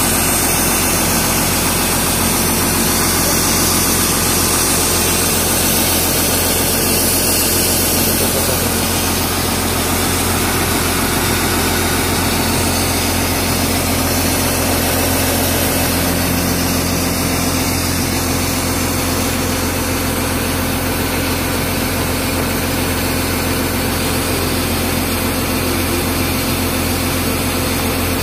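Hyundai hydraulic excavator's diesel engine running steadily, heard up close from on top of the machine's engine hood.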